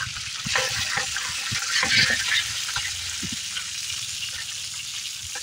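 Hot oil sizzling in a large pot as half-fried whole rabbits are lifted out with a metal skimmer, with a few knocks along the way and a louder burst of sizzle about two seconds in.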